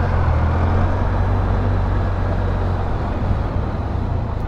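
Can-Am Spyder three-wheeled motorcycle riding along, its engine humming steadily at low speed under a steady rush of wind and road noise.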